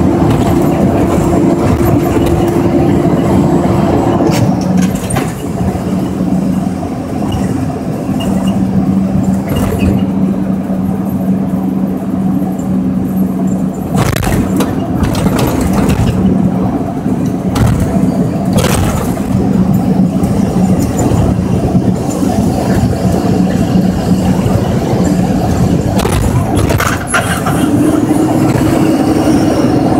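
Mack work truck driving, heard from inside the cab: a loud engine drone over road rumble. Its pitch drops about four seconds in and rises again near the end, with a few knocks and rattles along the way.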